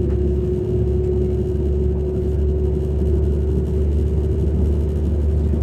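Class 195 diesel multiple unit heard from inside the carriage, its underfloor diesel engine and transmission running steadily under way: a low rumble with a steady whine that rises slightly near the end.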